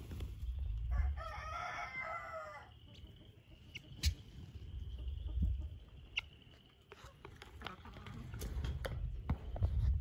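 A farmyard fowl gives one loud, warbling call of a little under two seconds, about a second in. A few sharp clicks and short calls follow.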